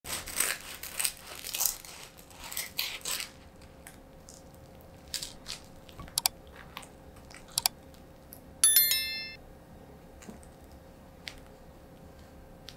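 A knife crunching through the crisp toasted crust of a grilled cheese sandwich for about three seconds. Then a few sharp clicks and a short ringing bell chime from a like-and-subscribe button animation.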